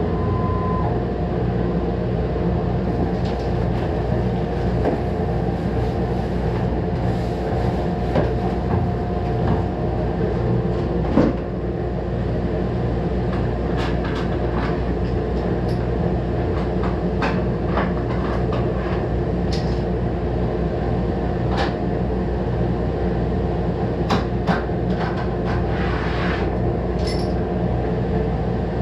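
Steady drone of workshop machinery running beside a CNC router, with scattered light clicks and knocks as hands work at the machine table. The sharpest knock comes about 11 seconds in, and the clicks come more often in the second half.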